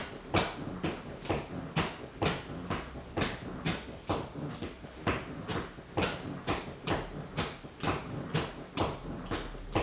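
White sneaker tapping its sole on a wooden floor in a steady rhythm, about two and a half sharp taps a second.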